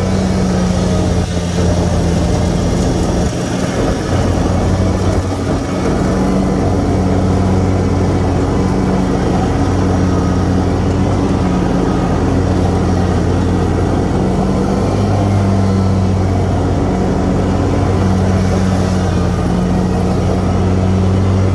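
Toro Z Master 6000 zero-turn mower's engine running steadily, a little below full throttle, with the 60-inch deck's blades engaged while it cuts tall grass.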